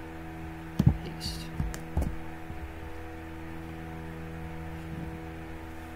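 Steady electrical hum on the recording. In the first two seconds come a few short thumps and clicks of mouse and keyboard use, with a brief hiss about a second in.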